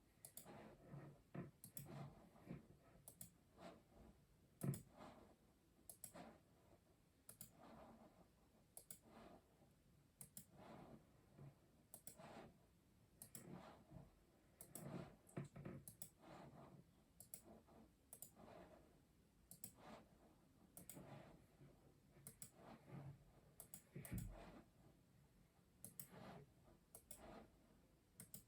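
Custom mechanical keyboard being typed on: an uneven, unhurried run of soft key clacks, roughly one or two a second, with a louder keystroke about five seconds in and a heavier thock near the end.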